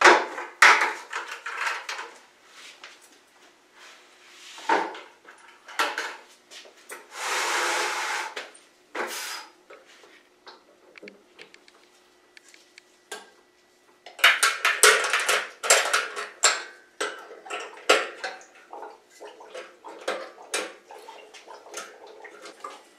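Stainless steel fittings clinking and knocking on a fermenter lid as a blow-off cane and tri-clamp are refitted to the lid port. There is a short hissing rush about seven seconds in, and a dense run of metal clicks in the second half.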